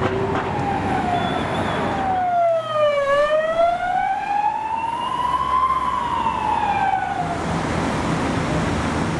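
Emergency vehicle siren on a slow wail: the tone falls, rises and falls again, then stops with about two seconds left, over road noise.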